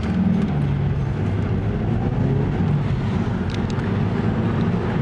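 Car engine drone and road noise while driving, heard from inside the car, steady and low.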